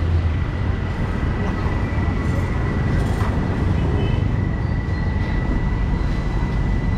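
Busy street traffic: a steady low rumble of passing cars and motorbikes, with a thin steady high tone over it.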